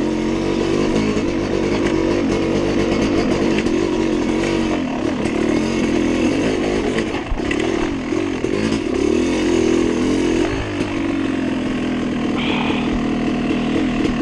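Dirt bike engine running under the rider on a rough trail: steady for the first few seconds, then revving up and down repeatedly through the middle as the throttle is worked.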